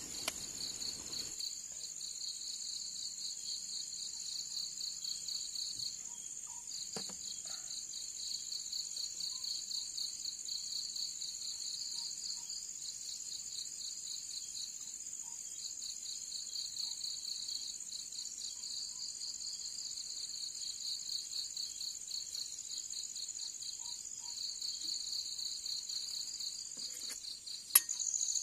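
Chorus of night insects calling in two layers: a high, continuous trill and a slightly lower pulsing chirp that breaks off now and then. A single sharp click near the end.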